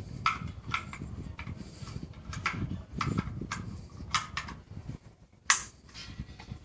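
Clicks and light knocks from a shotgun and its case being handled during unpacking, with one sharp click about five and a half seconds in.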